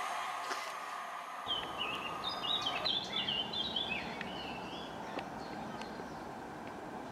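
A small songbird singing a quick run of chirpy, twittering phrases for a few seconds, over steady outdoor background noise.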